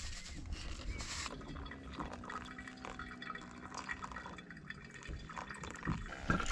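A thin stream of water from a camping kettle trickling onto ground coffee in a pour-over paper filter, with dripping. At the start, ground coffee is shaken from its bag into the filter with a brief hiss.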